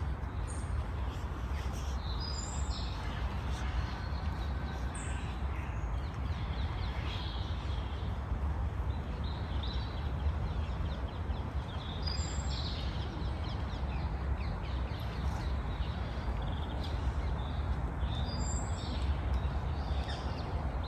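Outdoor park ambience: birds chirping and calling now and then over a steady low rumble.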